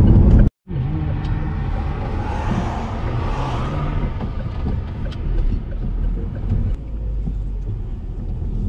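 Car cabin noise from an SUV with a 1.5-litre turbo engine driving slowly: a steady engine hum and tyre rumble. The sound cuts out briefly about half a second in, then the rumble resumes.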